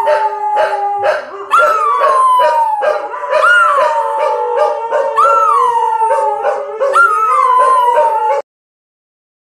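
Two dogs howling together, overlapping long howls that each rise quickly and then slide slowly down in pitch, a new one starting about every two seconds. The howling cuts off suddenly near the end.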